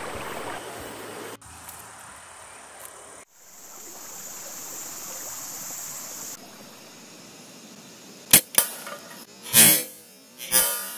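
Hunting slingshot rifle firing steel balls: two quick sharp clicks, then two louder sharp snaps about a second apart.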